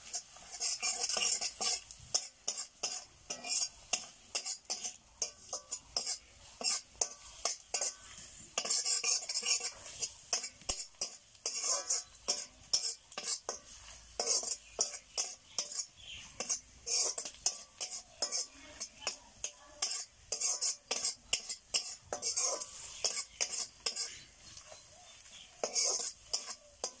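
Spatula scraping and stirring onions and green chillies frying in an iron kadai, in quick, irregular strokes with a light sizzle underneath; the stirring stops near the end.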